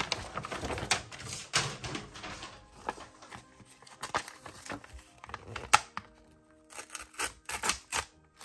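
Paper and a glossy card packet being handled, crinkling and rustling in short irregular bursts with small sharp clicks and taps.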